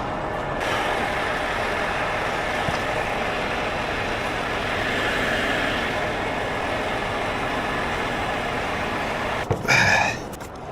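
Heavy tow truck engines running steadily, with a short, loud burst about a second before the end, after which the sound drops off.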